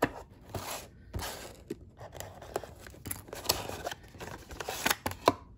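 Cardboard Hot Wheels ID box being handled and opened by hand: irregular scraping and rustling swishes with sharp clicks of the card.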